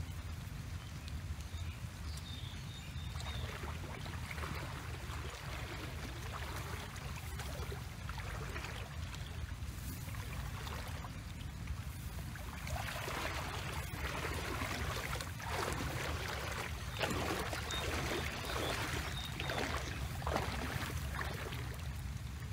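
Hands splashing and scooping in shallow muddy paddy water, in irregular bursts that come thicker and louder in the second half, over a steady low rumble.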